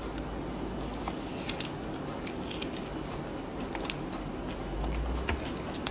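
A person biting into and chewing a fried stuffed tofu (tahu bergedil), with scattered small crunches and wet mouth clicks over a steady low hum.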